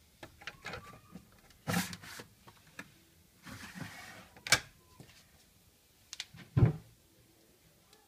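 Plastic detergent dispenser drawer of an AEG Öko-Lavamat washing machine being slid out and back in: sliding scrapes and light clicks, a sharp click, then a loud knock near the end as it is pushed shut.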